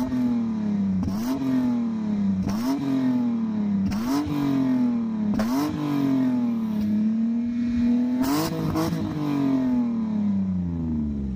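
BMW E39 528i's 2.8-litre straight-six revved repeatedly through a Magnaflow glasspack resonator with the muffler deleted. There are about seven throttle blips, each climbing quickly and falling back slowly, and the last rev sinks away slowly near the end.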